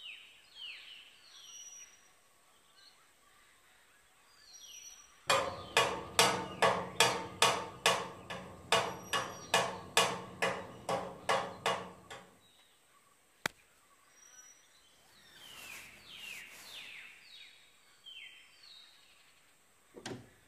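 Repeated hard blows on metal, about two and a half a second for some seven seconds, as a padlock is struck to break it open. Birds chirp before and after, and there is a single sharp click after the blows stop.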